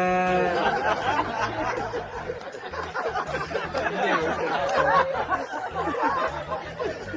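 A cow's long moo ends just after the start, followed by a crowd of people laughing and chattering.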